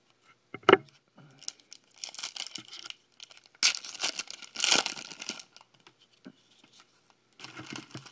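Foil wrapper of a 2011 Upper Deck SP Authentic football card pack crinkling and tearing open by hand, in bursts, loudest about four to five seconds in. A short sharp tap comes just under a second in.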